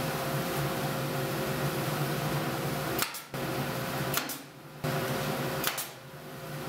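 Pneumatic brad nailer firing three times about a second apart, each shot a sharp double snap as it drives brads into white oak moulding. A steady hum runs underneath.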